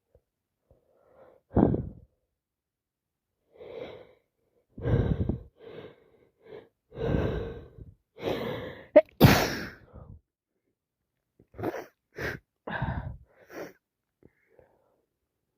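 A person with a cold sneezing: a run of sharp, gasping breaths builds to the loudest sneeze a little past halfway, followed by a few shorter bursts.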